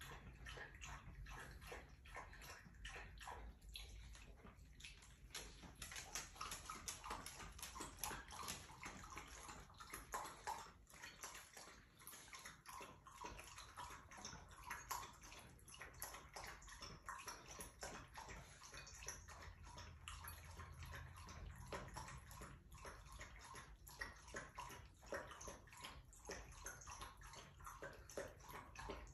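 Dogs lapping water from a bowl one after the other, in quick, steady, repeated laps.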